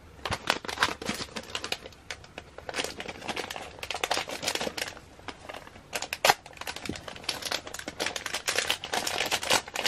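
Plastic mailer packaging crinkling and rustling as it is handled, a quick run of irregular crackles and taps with a sharper snap about six seconds in.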